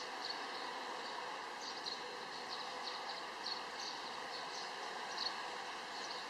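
Outdoor ambience: a steady hiss with short, high chirps recurring irregularly, about two a second.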